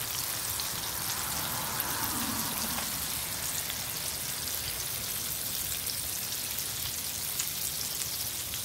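Batter-coated chicken wings deep-frying in oil in a cast iron skillet: a steady crackling sizzle. The frying is still lively, a sign the chicken is still cooking; the noise dies down when it is done.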